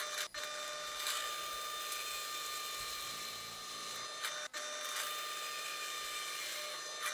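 Bench drill press running with a steady motor whine as its bit bores into a laminated plywood block. The sound cuts out for an instant twice.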